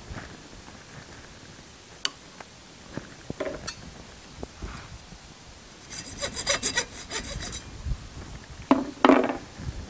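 Hacksaw cutting through a thin plastic mechanical-pencil tube clamped in a bench vise: a fast run of short rasping strokes for about a second and a half, a little past halfway, then two louder strokes near the end. Before that, a few scattered clicks and knocks.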